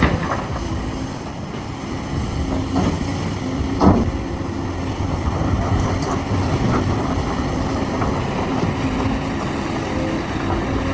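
Heavy diesel machinery running steadily, the engines of a large excavator loading haul trucks, with a single sharp knock about four seconds in.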